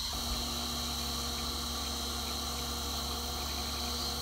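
Goblin RC helicopter's motor and rotor running steadily on the ground, a constant hum with a high whine that starts at the very beginning and holds level.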